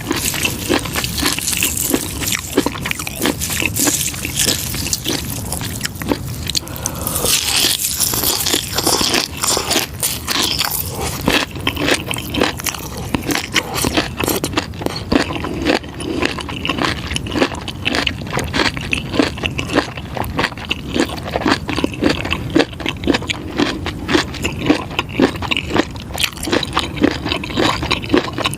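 Close-miked biting and chewing of pickled fish skin: a dense run of quick clicks and small crunches that keeps up throughout, with a brief sharper, brighter stretch about a third of the way in.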